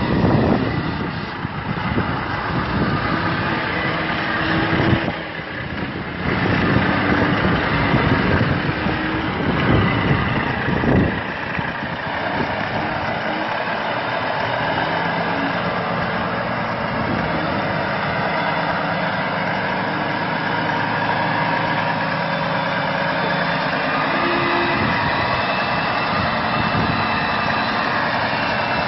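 Milk truck engine running, uneven with a few loud thumps in the first dozen seconds, then settling into a steady idle.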